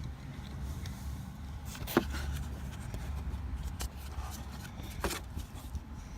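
A few sharp clicks and scrapes of a small screwdriver prying at the plastic clip of the alarm siren's electrical connector, the loudest about two seconds in and another near five seconds, over a steady low rumble of wind on the microphone.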